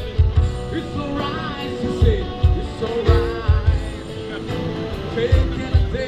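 Background pop song with a singer and a steady kick-drum beat.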